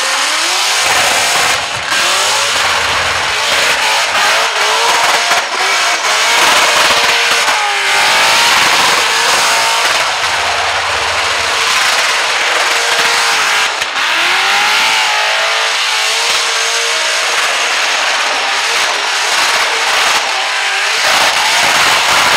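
Supercharged, fuel-injected LS V8 in a Holden Commodore ute revving hard during a burnout, its pitch rising and falling again and again, over the steady noise of the spinning rear tyres.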